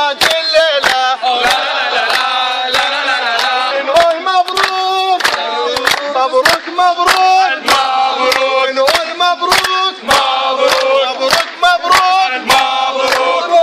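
A crowd of men singing and chanting together in unison while clapping their hands in a steady beat, about two claps a second.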